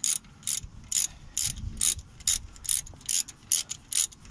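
Ratchet wrench fitted with a 7mm Allen bit, swung back and forth in short strokes. The pawl clicks in a quick burst on each return stroke, about two to three bursts a second, as it runs a brake caliper slide bolt back in.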